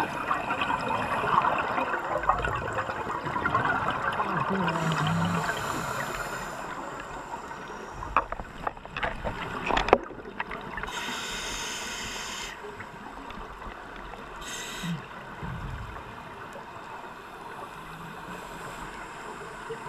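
Underwater scuba breathing through a regulator: a crackling stream of exhaled bubbles for the first six seconds or so, a few sharp clicks around eight to ten seconds in, then short hisses and quieter water noise.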